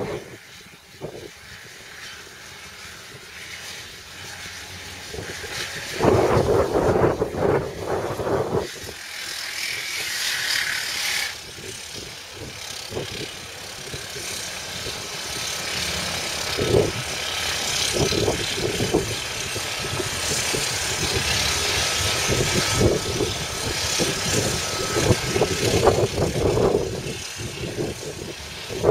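Volvo EC290CL excavator working: its diesel engine runs with changing load, with irregular clanks and knocks. There is a loud burst of clatter about six seconds in and a brief hiss around ten seconds.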